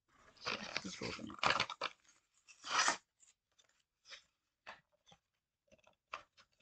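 Matchbox blister-card package being torn open by hand: crackling plastic and ripping card, loudest over the first two seconds with another burst about three seconds in, then scattered small clicks and rustles as the package resists opening.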